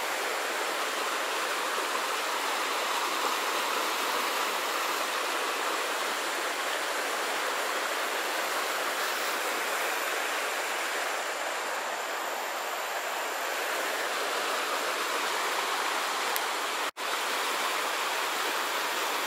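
Steady rushing of water pouring over a small waterfall, an even hiss with no rhythm. It cuts out for an instant near the end.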